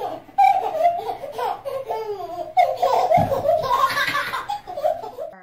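A baby laughing over and over, high-pitched, with a dull thump about three seconds in.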